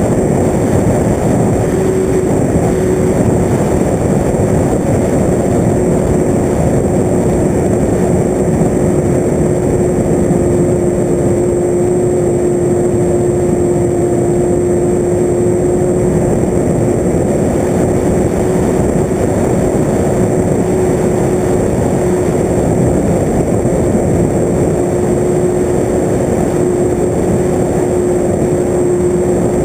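The electric motor and propeller of an FPV radio-controlled aircraft running steadily in flight. A constant, slightly wavering whine sits over a heavy rush of air noise.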